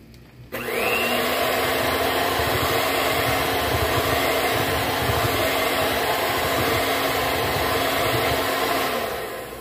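Kenwood electric hand mixer switched on about half a second in, its motor whining up to speed, then running steadily as the beaters mix thick cake batter in a bowl; it winds down near the end.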